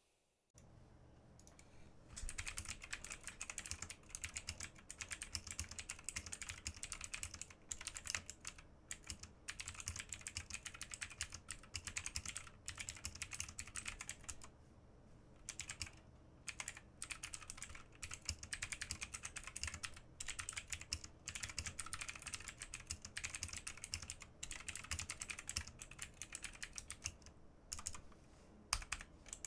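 Typing on a tenkeyless mechanical keyboard with Outemu Blue clicky switches: a fast, continuous stream of sharp key clicks with short pauses, starting about two seconds in.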